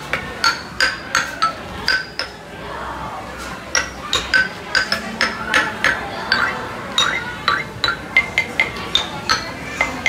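Hard objects clinking and clacking together in quick, irregular succession, several a second, each with a short bright ring. There is a brief lull about two and a half seconds in.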